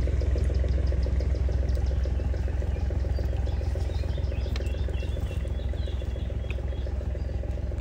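An engine idling steadily, a low even drone throughout. Faint high chirps come in briefly about four to six seconds in.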